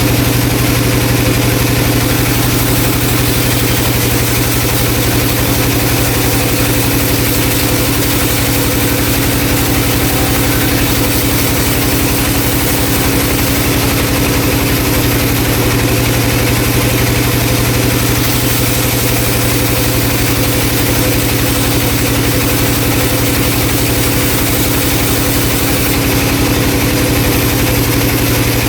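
Vertical band saw running steadily at a log mill, a loud constant low machine hum with a few steady higher tones and no change in load.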